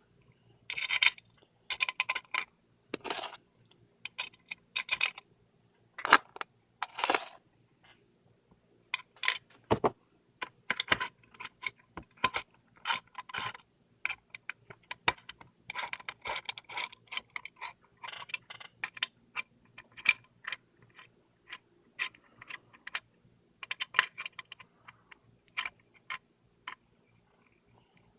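Screws and an Allen wrench clinking and scraping against the metal steering-wheel hub adapter as the screws are put in and turned: irregular sharp clicks and short metallic rattles.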